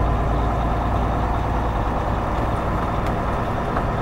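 Semi truck's diesel engine running steadily as the truck rolls slowly, heard from inside the cab as a deep, even drone.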